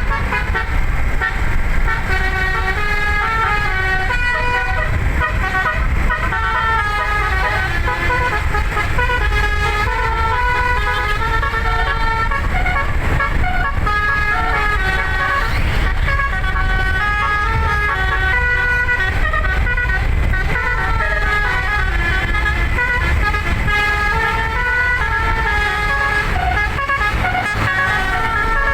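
Eleven-note telolet basuri musical air horn playing a melody, its notes stepping up and down in quick succession, over a steady low rumble.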